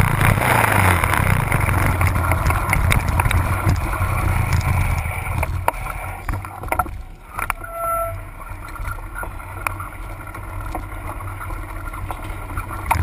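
Seeley Norton Commando parallel-twin engine running at low speed as the bike rolls slowly, with wind noise on the bike-mounted microphone. About five seconds in the engine note drops away and stays quieter as the bike slows.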